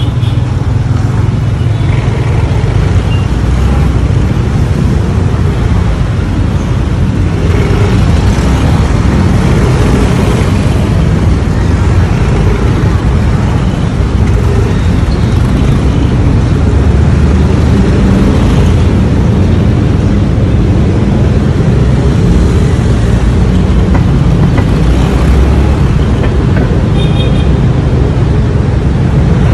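Loud, steady road traffic noise: car and motorcycle engines and tyres in slow city traffic, with a heavy low rumble throughout.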